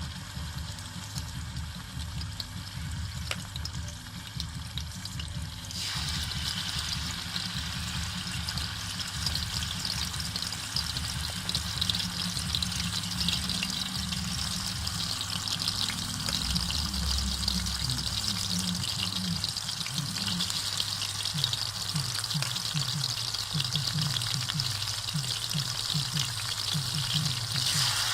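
Hot oil sizzling in a deep fry, starting suddenly about six seconds in and going on as a steady hiss, over a low steady hum.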